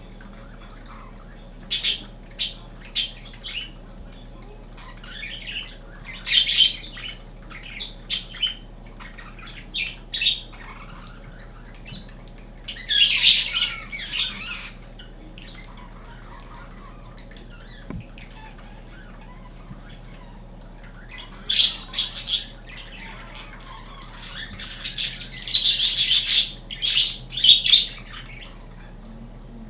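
Budgerigar chirping and squawking in short scattered bursts, with quiet gaps between the clusters of calls.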